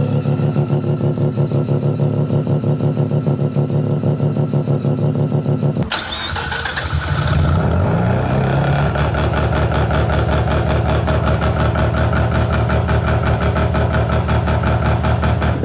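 Mazda 12A rotary engine idling with a fast, choppy pulse. About six seconds in it cuts abruptly to another 12A rotary, which dips, rises briefly in pitch and then settles back into a steady choppy idle.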